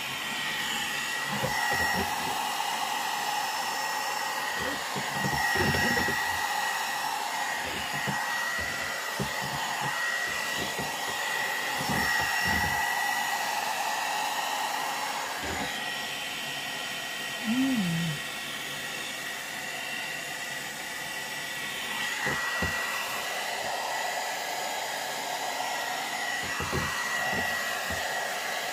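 Hot air brush hair dryer running steadily, blowing air with a constant high motor whine, while it is worked through the hair.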